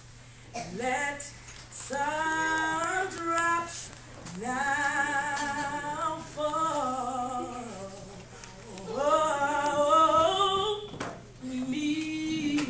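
A woman singing a gospel song solo and unaccompanied, in several long phrases with a wavering vibrato on the held notes and short pauses for breath between them.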